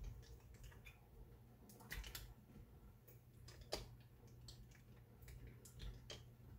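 Faint scattered clicks and taps of glass canning jars and fingers as cucumber slices are packed into filled jars, over a low steady hum.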